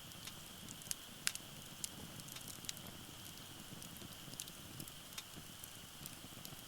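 Wood fire crackling in a Uniflame firewood-grill fire pit: irregular sharp pops and ticks, the loudest about a second in, over a low rumble of the flames. A steady high-pitched note runs underneath.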